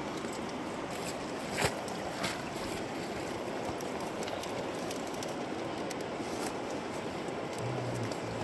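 Steady rush of river water flowing past, with two sharp clicks about a second and a half and two seconds in, and a brief low hum near the end.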